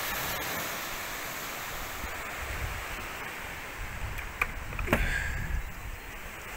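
Steady wash of sea water on a rocky shore, with low wind rumble on the microphone. A few sharp clicks come about four to five seconds in.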